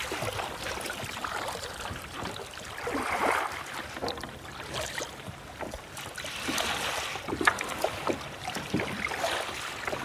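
Lake water splashing and sloshing around kayaks, in irregular swells with a few sharp splashes in the second half.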